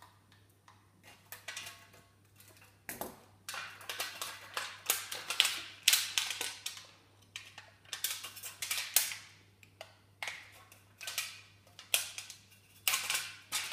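Thin metal drink can being cut with scissors and then torn and peeled apart by hand, the metal crinkling and crackling in repeated irregular bursts.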